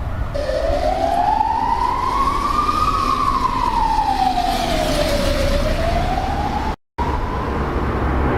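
Siren wailing slowly up and down, falling, rising over a couple of seconds, falling again and starting to rise, over a steady low rumble. The sound drops out abruptly for a moment near the end.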